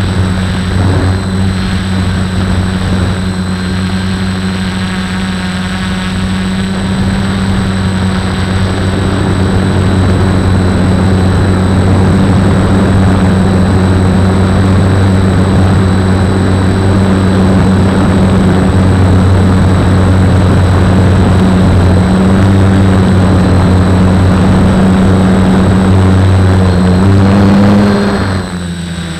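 Quadcopter's electric motors and propellers buzzing steadily, loud and close as heard from the onboard camera, with a faint high whine above. About a second before the end the sound drops in level and its pitch wavers.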